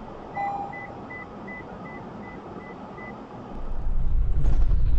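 A vehicle's electronic warning chime: a brief lower tone, then eight short high beeps at an even pace of about three a second. A loud low rumble comes in about three and a half seconds in and holds.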